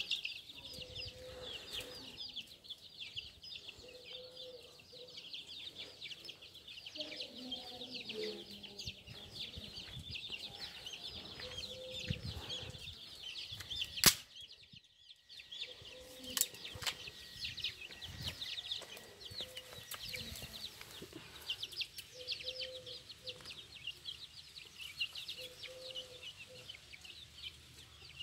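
A group of young chicks peeping continuously, many quick, high, overlapping peeps. A single sharp knock about halfway through.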